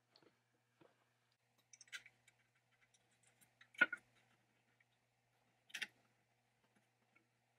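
Small metal clicks from the thumbscrew and blade-guide bracket of a 1940s Duro band saw being handled: three short clicks about two seconds apart, the middle one loudest, with a few fainter ticks between.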